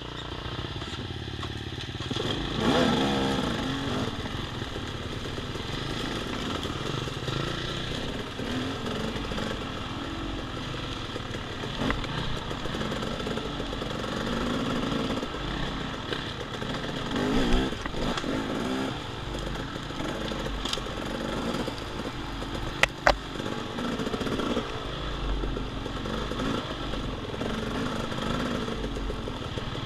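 Off-road motorcycle engine running and revving up and down in pitch as it is ridden, with a couple of louder surges of throttle. Two sharp knocks in quick succession come about two thirds of the way through.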